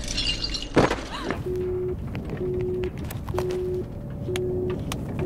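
A sudden loud hit about a second in, then a mobile phone's tone beeping steadily, short half-second beeps about once a second, over a low rumble.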